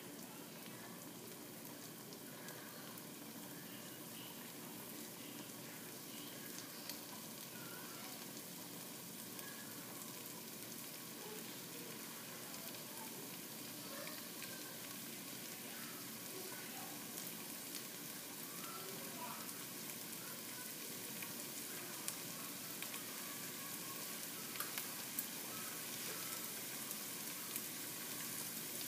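Julienned ginger frying in oil in a nonstick pan as it starts to caramelize. A soft, steady sizzle grows slowly louder, with a few small pops in the second half.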